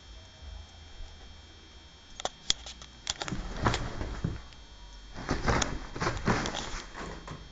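Bull Terrier moving about on a duvet close to the camera: rustling of the bedding in two stretches, after a few sharp clicks about two seconds in.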